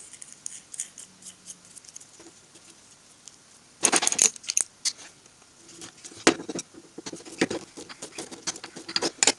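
Small metal parts handled on a steel workbench: scattered clicks and taps of a disc mandrel's bolt and washer being fitted and set down, with a louder clatter about four seconds in.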